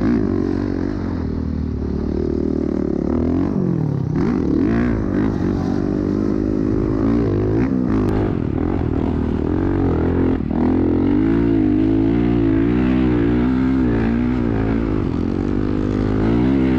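Honda CRF450R dirt bike's single-cylinder four-stroke engine, heard up close from on the bike, revving up and down over and over as the throttle is worked while riding. The swings in pitch come quicker and shorter in the second half.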